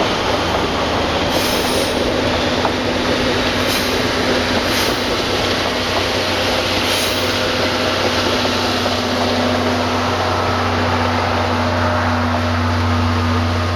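Train hauled by steam locomotive C11 171 running on the rails: a steady loud rumble with a low hum, and a few short high clatters or squeals in the first half.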